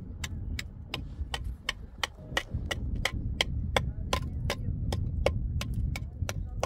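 Rapid, evenly spaced knocking, about three sharp strikes a second, over a steady low rumble.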